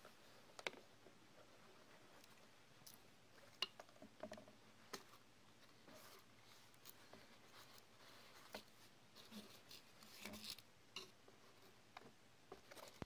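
Faint, scattered small clicks and brief light rustles as hands handle a wristwatch on its cushion and the box packaging around it, with a small cluster of them near the end.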